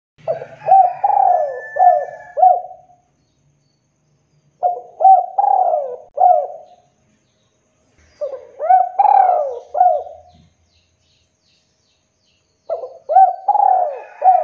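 Spotted dove cooing: four phrases of several quick coos each, one phrase about every four seconds, the last running on past the end.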